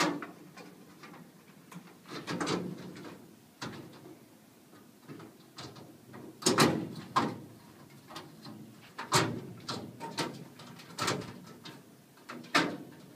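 A steel locking bar knocking and scraping against the sheet-steel frame of a filing cabinet as it is fitted into its channel, in a series of irregular metal clanks.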